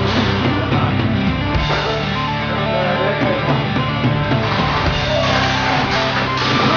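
Loud rock or metal backing music, with distorted guitar and drums.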